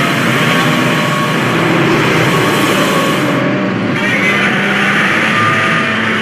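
Godzilla roar sound effect: a harsh, continuous monster roar.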